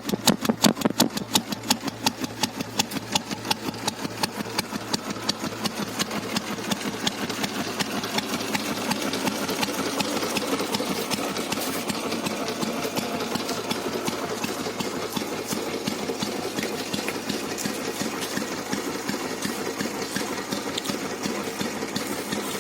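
Royal Enfield Bullet's single-cylinder engine running. It starts with distinct, evenly spaced beats, which blur into a faster, steadier run that grows a little louder from about eight seconds in.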